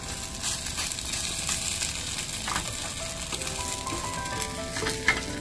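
Potato pancakes sizzling in oil in a frying pan, a steady hiss, over soft background music of held notes. A sharp click, like a utensil tapping the pan, sounds about five seconds in.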